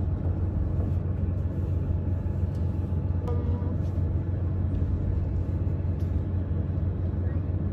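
Tractor engine running steadily, a deep even hum with no change in speed.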